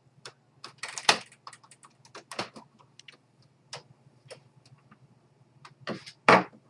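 Plastic clicks and knocks from an Epson WorkForce 840 inkjet printer being handled as its top scanner lid is lowered shut, irregular and sharp, with the loudest knock near the end.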